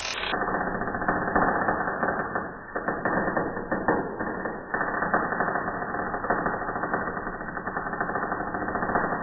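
Welding arc crackle played back slowed down: a dense, continuous run of sputters and pops, muffled and lowered in pitch, which turns muffled just after the start.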